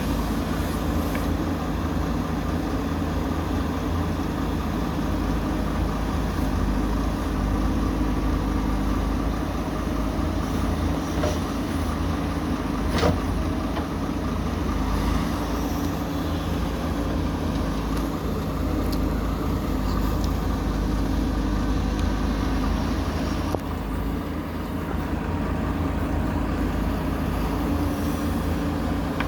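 JCB 3DX backhoe loader's diesel engine running steadily, with a single sharp knock about halfway through.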